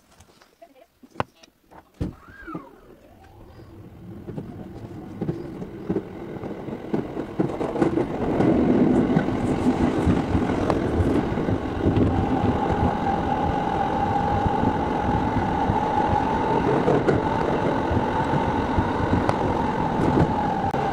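Electric commuter train pulling away from a station, heard from inside the carriage: a couple of knocks in the first two seconds, then the running noise of wheels and motors builds over several seconds to a steady rumble, with a steady whine joining about twelve seconds in.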